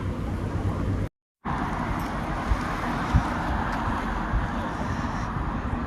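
Street ambience of steady road traffic noise. The sound cuts out completely for a moment about a second in, then a couple of soft low thumps follow.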